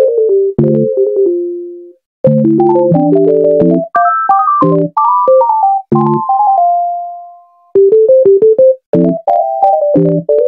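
Background music: a bouncy synthesizer and electric-piano melody in short, chopped phrases, with a brief break about two seconds in and a held note fading out midway.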